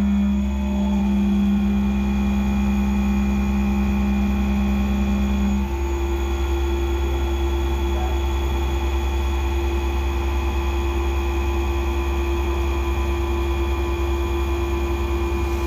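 Skyfire SVM-2 CNC mill machining an aluminium block with an endmill under flood coolant: a steady machining hum with a strong whining tone that steps up in pitch about six seconds in.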